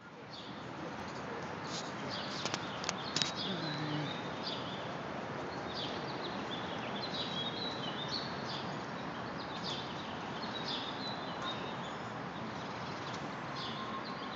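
Fountain water running in a steady wash, with ducklings peeping in short high chirps again and again over it. A few sharp clicks come about two to three seconds in.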